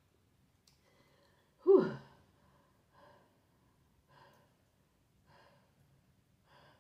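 A woman lets out one loud voiced sigh that falls in pitch about two seconds in, then breathes faintly in short, quick breaths: she is out of breath from overeating.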